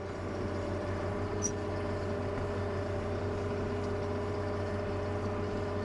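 Tractor engine and PTO-driven Kubota BV4160 round baler running steadily at a slow, even pace, a continuous hum with a faint tick about one and a half seconds in.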